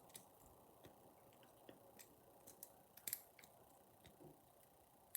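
Faint, irregular metallic clicks and ticks of a half-diamond lock pick working the pins of a six-pin euro cylinder lock held under tension, the sharpest click about three seconds in.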